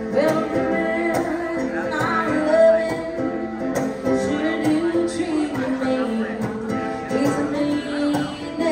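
Music: a woman singing a song over plucked guitar accompaniment.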